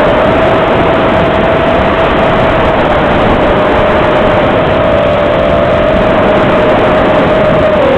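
Small quadcopter's electric motors and propellers whining at a near-steady pitch under a heavy rushing noise, the pitch stepping down near the end as the throttle eases.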